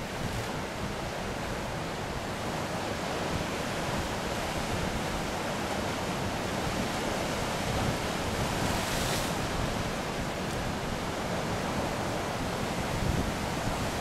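Ocean surf breaking and washing up a sand beach: a steady rush of waves, with a brighter wash about nine seconds in.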